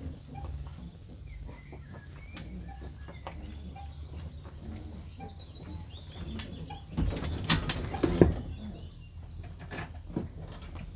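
Small birds chirping outdoors over a low rumble. About seven seconds in comes a cluster of loud knocks and clunks, with a few fainter knocks near the end.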